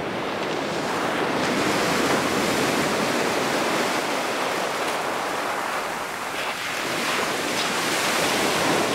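Ocean surf breaking and washing up the beach: a steady rush of noise that swells and eases slowly.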